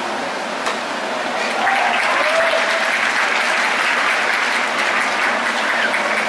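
Ballpark crowd cheering and applauding after a pitch, swelling about a second and a half in and easing near the end, with a few individual shouts. A short sharp pop comes just under a second in.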